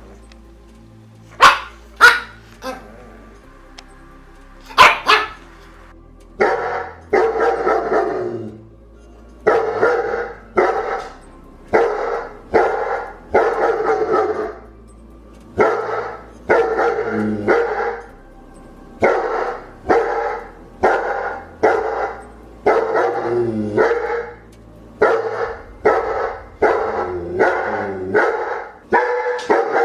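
Dog barking repeatedly: a few sharp, separate barks in the first five seconds, then from about six seconds in a steady run of barks, often in quick pairs, about one to two a second.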